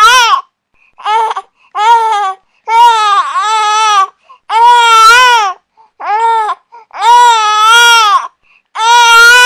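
Infant crying: a string of about eight wails, some short and some drawn out over a second, with brief silent gaps between them for breaths. The last wail starts near the end and carries on.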